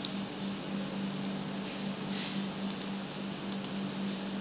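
A few faint, sharp computer-mouse clicks over a steady low electrical hum and hiss from the recording setup.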